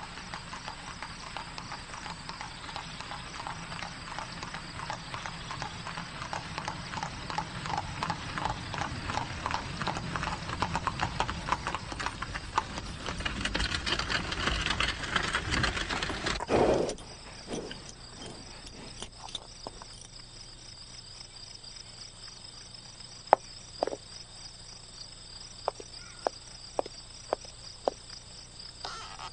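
Horse hooves clip-clopping on cobblestones as a horse-drawn carriage rolls along, growing louder until it halts about halfway through. After that come a few single sharp knocks over a steady high insect chirring.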